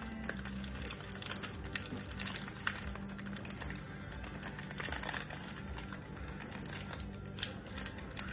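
Thin plastic flour bag crinkling as its top is twisted together and tied into a knot by hand, a run of small irregular crackles.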